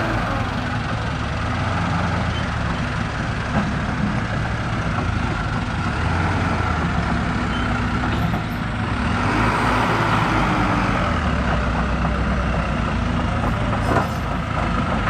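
Heavy diesel engines running steadily under load: a loaded Hino 300 truck and a tracked excavator whose bucket is pushing it from behind. One sharp knock near the end.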